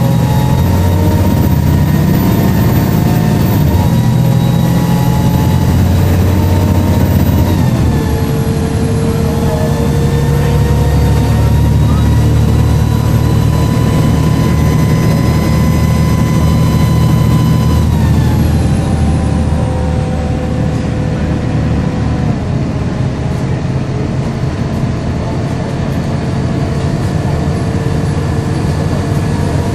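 Volvo B7LA bus diesel engine and ZF automatic gearbox running under way, with a whiny turbo whistle. The whining tones drop about 8 s in as the gearbox shifts, rise steadily with speed, then fall away from about 18 s and drop again about 22 s in as the bus slows.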